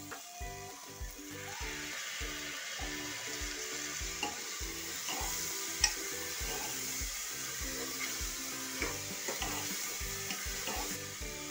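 Chopped bottle gourd sizzling in hot oil in an aluminium pressure cooker, the sizzle growing about a second and a half in, while a metal spoon stirs it with scattered scrapes and clinks against the pot. The sharpest clink comes about halfway through. Background music with a steady beat plays under it.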